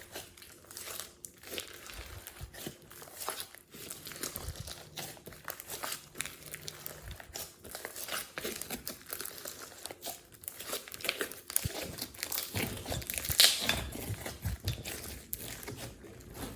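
Glossy slime being squeezed and worked by hand: dense, irregular crackling with sticky clicks and pops, loudest about thirteen seconds in, cutting off abruptly at the end.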